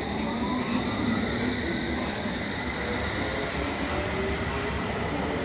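Bachmann OO gauge model London Underground S-stock train running past on the layout: a steady rumble of its wheels on the track and the whine of its motor, which rises in pitch in the first couple of seconds.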